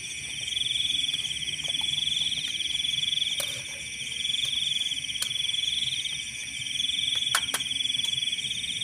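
Chorus of night insects, crickets trilling in high, steady waves that swell and dip about once a second. A few sharp clicks are scattered through it.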